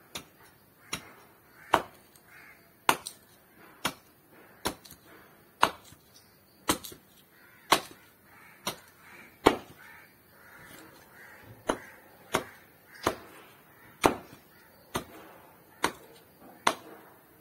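Small hand hatchet chopping and trimming a piece of wood held on a wooden block: sharp knocks roughly once a second, with a short pause a little past halfway.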